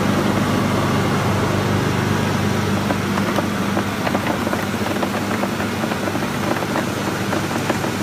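Date-processing line running: a steady motor hum from the machinery, with dried red dates clattering as they tumble over stainless-steel rods and conveyors. The small clicks thicken from about three seconds in.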